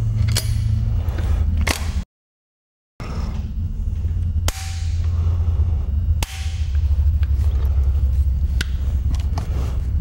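Several sharp metallic clicks and snaps of a side-by-side sidelock double shotgun being put together, the barrels and forend fitted to the action, over a steady low rumble. The sound cuts out completely for about a second near two seconds in.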